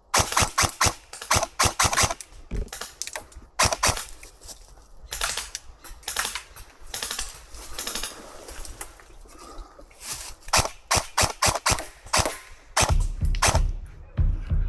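Airsoft guns firing: rapid strings of sharp shots in bursts with short gaps between, the heaviest volleys at the start and again about ten seconds in.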